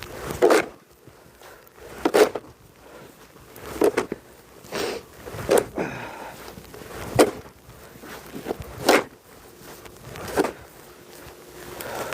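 Snow shovel scraping and scooping snow in a steady rhythm, about eight strokes, one every second and a half to two seconds.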